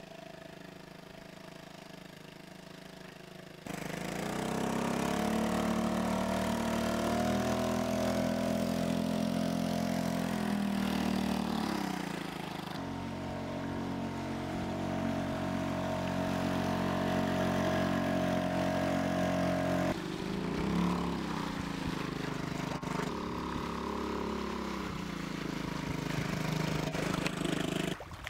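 Honda BF 2.3 small four-stroke outboard motor running under way. Its note rises and falls with the throttle and jumps abruptly in level and pitch a few times. It is fainter for the first few seconds, then louder.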